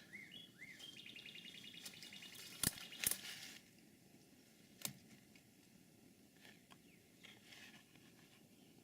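Songbirds calling: short rising-and-falling chirps, then a fast, even trill lasting a few seconds. A few sharp clicks cut through, two close together midway and one a little later.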